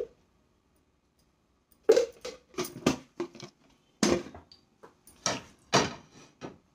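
An irregular string of knocks, clicks and rustles close to the microphone, starting about two seconds in: someone moving and handling things in the kitchen right beside the camera.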